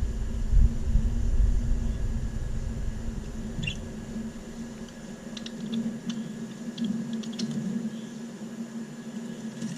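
Budgerigars giving a few short, faint chirps, scattered through the second half, over a steady low hum. A low rumble dominates the first half and stops about five seconds in.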